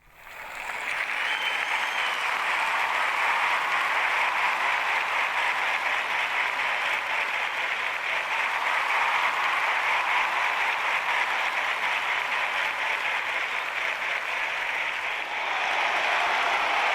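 Dense, steady applause of many hands clapping, swelling up within the first second and holding at an even level.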